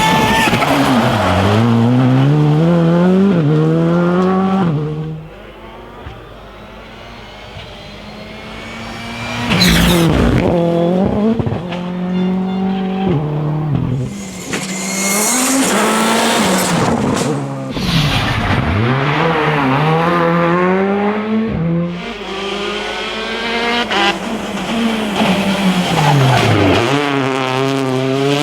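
Rally cars at full throttle, one after another, engines revving up and dropping back in steps at each gear change and sweeping past. The sound eases for a few seconds about a third of the way in, then comes back loud.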